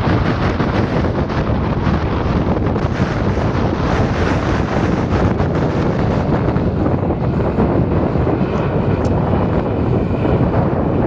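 Boeing 787-9 Dreamliner's GE GEnx-1B turbofans running at takeoff thrust, a loud steady jet roar, mixed with wind buffeting the microphone.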